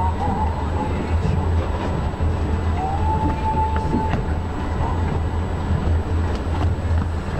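Passenger train running at speed, heard from inside the carriage: a steady low rumble of wheels on track, with a few faint ticks. A thin high tone shows briefly at the start and again for about a second around three seconds in.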